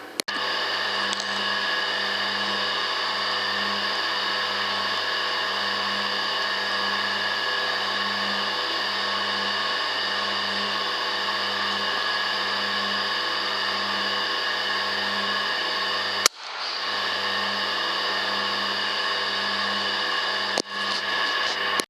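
Steady electronic whine with many fixed tones and a pulsing low hum, the self-noise of an ATN 4K digital rifle scope's built-in recorder. A sharp click about 16 seconds in is followed by a brief dropout, and the sound breaks off again briefly near the end.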